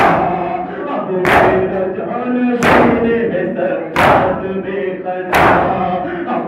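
Matam: a crowd of men beating their chests in unison, one loud collective slap about every 1.3 seconds, five in all, while they chant a mourning lament together between the beats.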